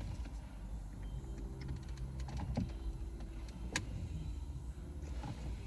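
Small plastic clicks and ticks of a clip being worked at by hand on a steering-column clock spring, with one sharp click near four seconds in, over a steady low hum.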